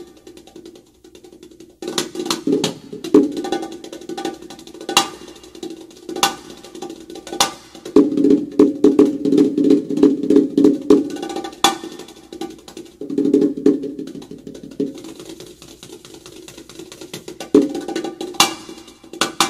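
A pair of bongos played with bare hands: sharp slaps and ringing open tones, with dense fast runs of strokes in the middle and near the end, after a brief pause at the start.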